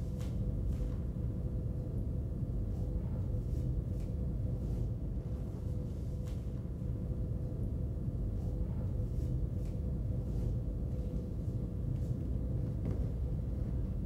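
Steady low rumble and hum of room tone, with a constant faint tone and a few faint ticks; no distinct event.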